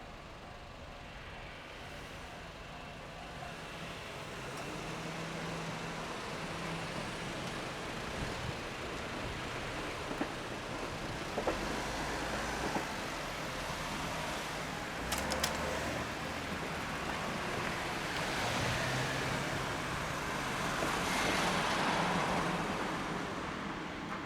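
Joban Line E531 series electric train running on the rails, its wheel-on-rail rumble building up as it approaches, with scattered sharp clicks in the middle. It is loudest a few seconds before the end and eases off slightly at the close.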